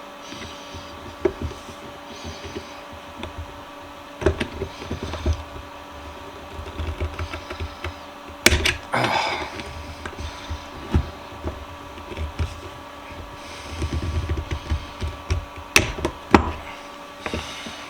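Irregular clinks and knocks of hand tools and metal parts being handled on a workbench, with sharper clicks about eight and a half and sixteen seconds in.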